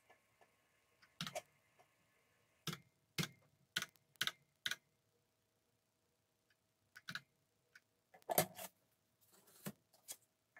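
Keys being pressed one at a time on an Apple II computer keyboard: about nine separate clacks at uneven spacing, with a pause of about two seconds midway, over a faint steady hum.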